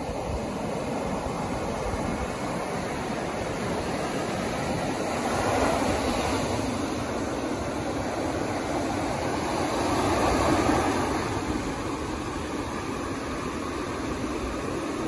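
Ocean surf breaking and washing up a sandy beach, a steady rush that swells twice, about six and about ten seconds in.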